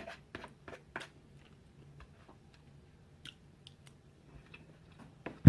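Close-miked chewing and mouth sounds of a person eating: a scattering of soft, wet clicks, with a sharper, louder click near the end.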